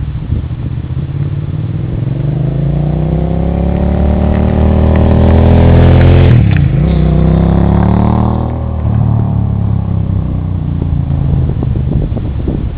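Suzuki SV650's 90-degree V-twin engine accelerating under load, its pitch climbing steadily, dipping sharply once for an upshift about two-thirds of the way through, climbing again, then falling back to a lower steady note as the throttle eases off.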